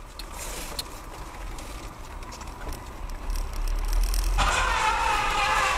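Vehicle driving over a rutted dirt track, heard from inside the cab: a low rumble with scattered knocks and rattles. About four seconds in it grows louder as a steady droning tone joins.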